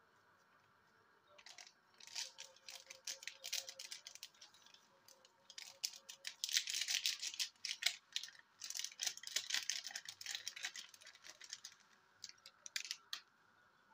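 Plastic seasoning sachets crinkling and rustling in irregular bursts as powder is shaken and tapped out of them, starting about a second and a half in.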